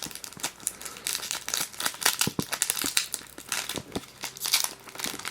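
Foil wrapper of a Pokémon booster pack being handled and torn open: crinkling and tearing with many short crackles.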